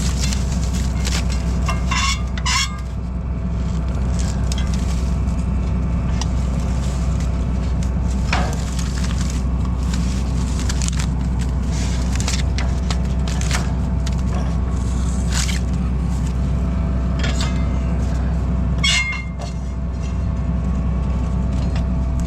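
Farm tractor's diesel engine running steadily, with a few sharp knocks over it, the loudest near the end.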